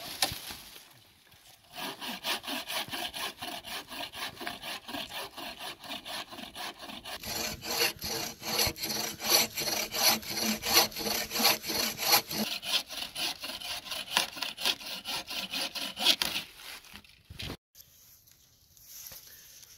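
Bow saw cutting through a dead hardwood log with rapid, even back-and-forth strokes. The strokes stop a few seconds before the end, as the section is sawn off.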